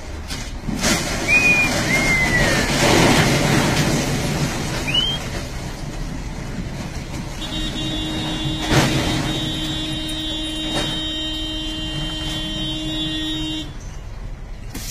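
Truck manoeuvring with its engine running and street noise, a few short whistles in the first five seconds, and a sharp knock about nine seconds in. A vehicle horn sounds one steady note from about halfway through for roughly six seconds.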